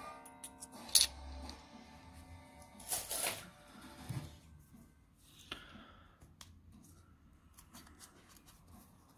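Two-euro coins clinking together and being set down on a wooden table: a sharp click about a second in and a cluster of clinks around three seconds. Fainter clicks follow near the end as a paper coin roll is handled. Faint background music runs underneath.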